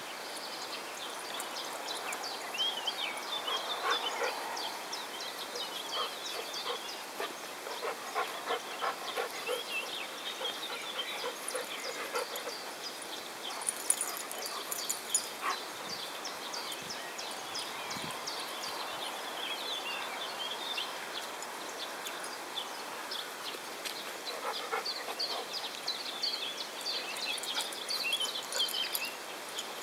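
Outdoor ambience of small birds chirping throughout, with occasional sounds of dogs at play on grass.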